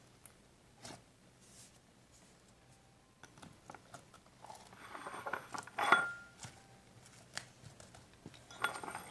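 Fluffy slime being dug out of a plastic jar and kneaded by hand: small wet squelches and crackling air-pocket pops. There are only a few faint clicks at first, then the squishing thickens from about three seconds in and is loudest about six seconds in.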